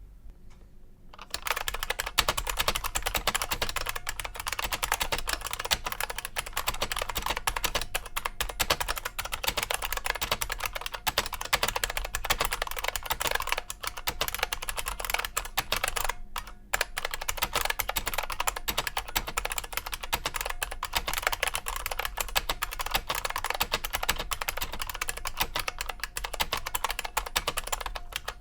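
Typing on an IBM Model M122 terminal keyboard with buckling-spring switches: a fast, steady run of clicky keystrokes that starts about a second in and breaks off briefly a little past halfway.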